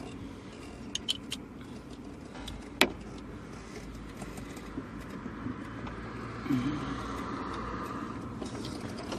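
Small sharp clicks and scrapes of a flat screwdriver prying at the horn wire's plug under a car's steering wheel, with one sharper click about three seconds in.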